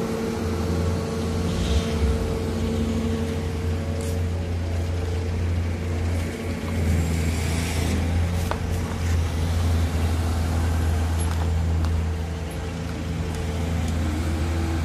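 Bobcat skid-steer loader's diesel engine running at a steady speed, its hum sitting under a broad rushing noise as it works the asphalt.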